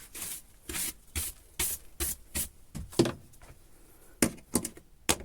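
A brush sweeping burnt paint flakes off a work surface in quick short strokes, about two a second, with a louder knock about three seconds in and a few sharp clicks near the end.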